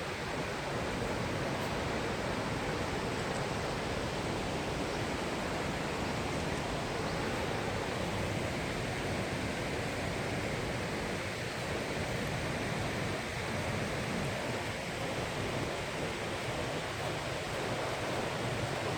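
Steady rush of stream water flowing fast.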